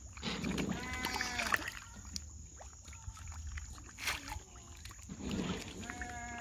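Feeding carp, tilapia and tambaqui splashing and slurping at the pond surface as they take floating pellets. A few short bleats, about a second in and again near the end, over a low steady rumble.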